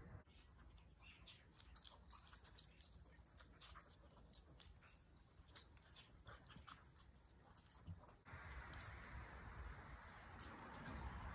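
Faint sounds of a dog at rough play: scattered short scuffs and ticks. A low steady hiss sets in abruptly about eight seconds in.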